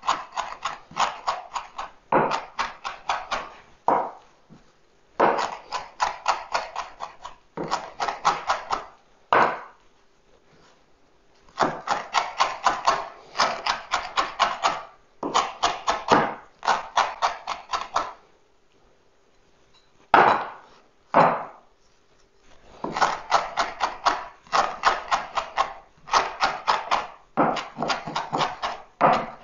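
Kitchen knife chopping fresh parsley on a wooden cutting board: quick runs of about five chops a second, broken by short pauses while the chopped herbs are gathered together.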